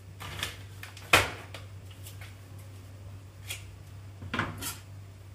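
Kitchen handling noises: a few sharp clicks and knocks as a bottle and a meat package are handled at the bench, the loudest about a second in, over a steady low hum.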